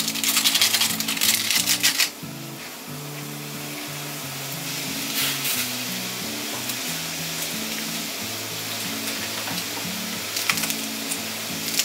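Loud crackling and hissing for about the first two seconds as liquid ramen soup base is poured into boiling water in a pot, then the steady bubbling of the boiling soup with a few light taps. Background music plays throughout.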